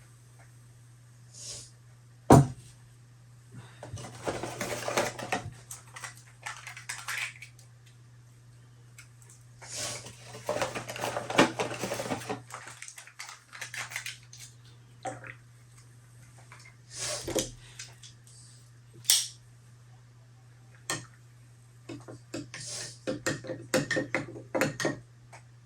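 Dishes and utensils being handled: irregular clinks, knocks and short clattering bursts, over a steady low hum that drops out briefly about halfway through.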